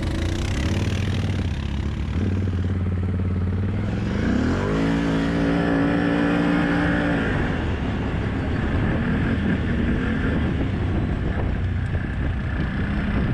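ATV engine pushing through a deep mud hole: it runs low, revs up about four seconds in, holds high for a few seconds, then drops back.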